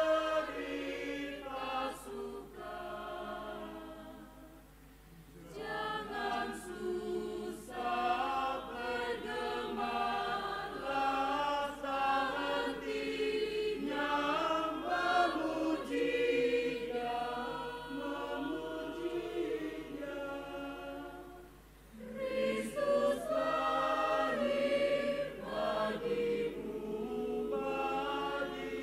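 Mixed choir of men's and women's voices singing together in parts under a conductor, the phrases dropping away briefly about five seconds in and again about three-quarters of the way through.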